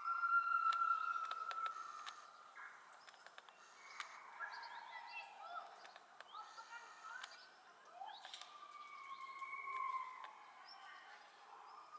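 Birds chirping and whistling, with a few longer held whistled notes, over a faint steady background hum.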